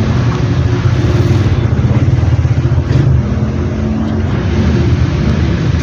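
A motor engine running steadily with a low, even drone.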